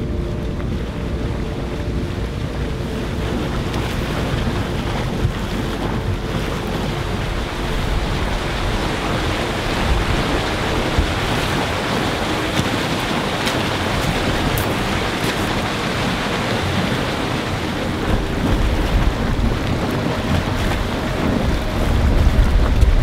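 Wind blowing across the microphone: a steady rushing with gusty low buffeting that grows stronger near the end.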